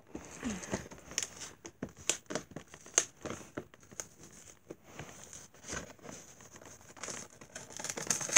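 Hands opening a cardboard Pokémon trading-card box: irregular crinkling and tearing of its packaging, with many scattered short clicks and scrapes.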